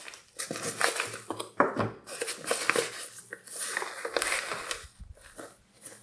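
Hands handling a nylon pouch and its fabric care label: irregular rustling, crinkling and small scratches as the stitching that held the label is picked at.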